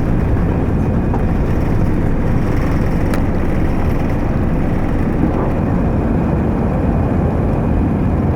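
Steady, loud rumble of an Airbus A320's jet engines and airflow heard inside the cabin, with no rise or fall in pitch.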